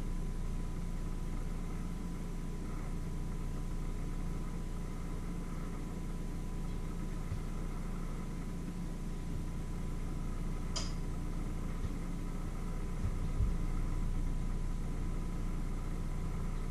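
Steady low machine hum with a faint steady high whine over it. A single sharp click comes about eleven seconds in, and a soft low thump a couple of seconds later.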